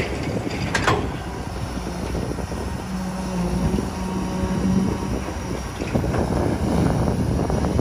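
Kobelco SK250 crawler excavator's diesel engine running under load while the bucket digs into soil and stones, with a sharp clank about a second in and a steadier hum for about two seconds in the middle.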